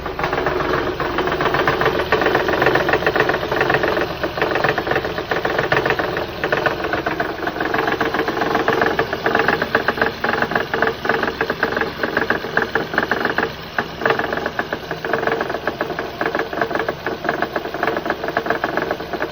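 2006 Honda Odyssey's V6 engine running with a rapid, steady knocking over the engine note. The owner has ruled out the timing belt tensioner as the cause.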